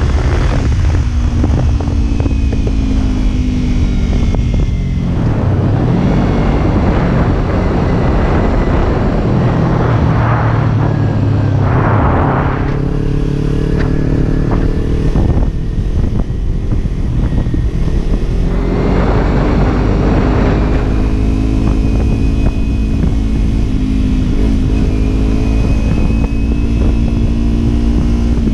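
Kawasaki Ninja 300's parallel-twin engine running while riding, its pitch falling and rising with throttle and gear changes, over a heavy low rumble of wind on the microphone.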